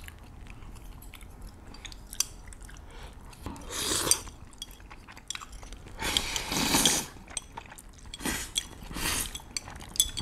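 Slurping of saucy udon noodles and chewing during a meal, in several noisy bursts, the longest about six seconds in, with small clicks between them.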